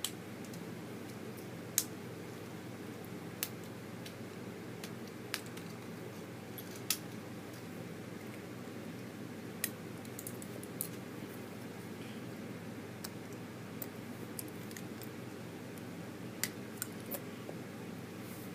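Plastic Lego bricks being handled and pressed together: sharp, irregular clicks every second or two over a steady low hum.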